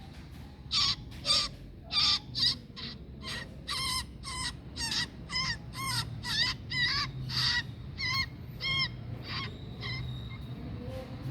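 A bird calling over and over, about twenty short harsh pitched calls at roughly two a second, over a low steady rumble.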